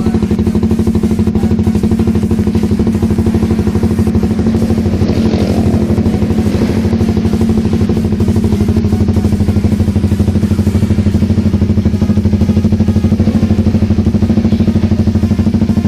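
Suzuki GSX-S150's single-cylinder engine idling steadily through an aftermarket racing exhaust, a fast even putter with no revving.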